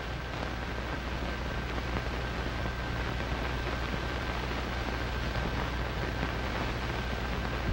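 Steady hiss with a low hum and a faint thin whine, the background noise of an old film soundtrack, with no distinct event standing out.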